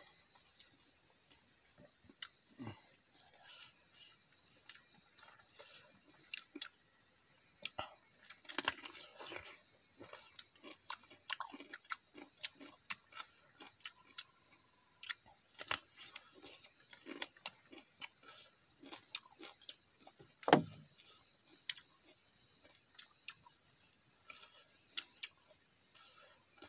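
Steady high-pitched chirring of insects, with close-up eating sounds over it: chewing, and hands clicking and rustling on banana leaves. A single sharp thump comes about twenty seconds in.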